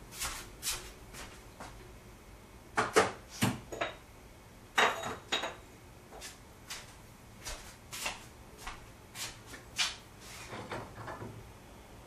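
Irregular knocks and clicks of kitchen utensils and containers being handled and set down, loudest about three and five seconds in.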